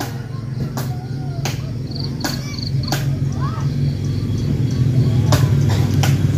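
A low, steady engine hum that grows gradually louder, with sharp clicks about every three quarters of a second and a few faint high chirps about halfway through.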